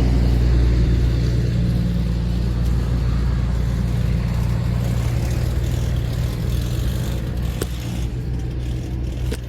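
A bus going by on the road, its engine's low rumble slowly fading as it moves away.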